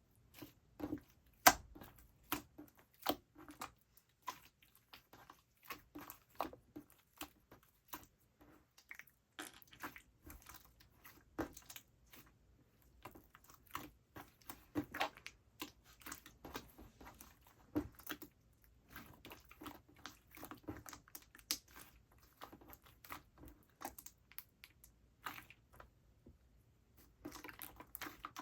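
Slime being squished and pressed by hand, giving a dense, irregular run of small sticky clicks, pops and crackles.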